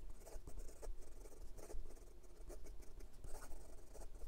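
Steel nib of a Leonardo Momento Zero Grande 2.0 fountain pen scratching across notebook paper in quick, irregular cursive strokes, a fast-writing test of whether the ink feed keeps up.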